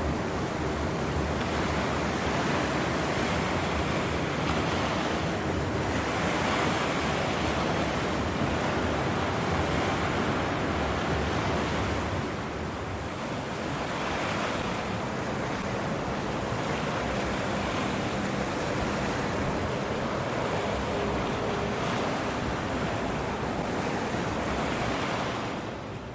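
Water washing and wind on the microphone make a steady rushing noise that swells and eases every few seconds, fading out near the end.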